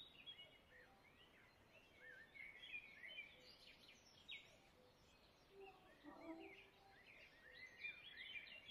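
Near silence, with faint birds chirping in the background: quick little chirps that glide up and down in pitch.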